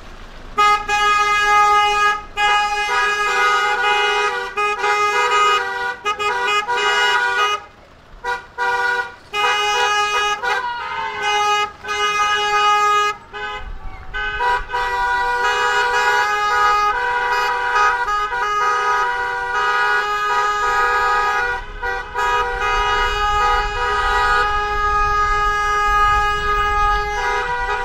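Car horns honking in long, held blasts, broken by short gaps at first and then sounding almost without a break through the second half.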